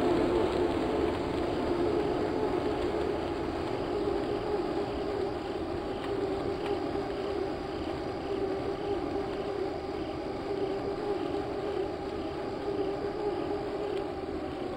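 Steady droning hum over a rushing noise, easing slightly over the first few seconds, like a vehicle on the move.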